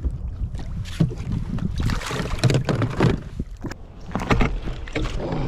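Wind rumbling on the microphone, with water splashing and a few hard knocks against a kayak as a big snapper is brought aboard.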